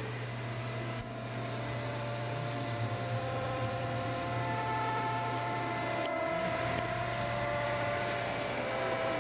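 A kitchen appliance running with a steady electric hum: a low buzz with several fixed higher tones above it, unchanging throughout.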